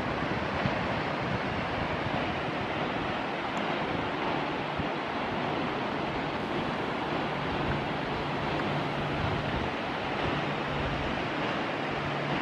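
Steady wind rushing over the camera's microphone, with a faint low hum coming and going in the second half.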